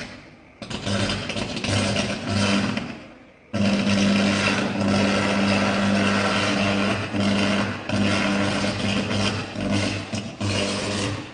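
Electrical arcing inside an electricity meter box: a crackling buzz with a strong mains hum. It comes in short bursts at first, then runs almost unbroken from about three and a half seconds in.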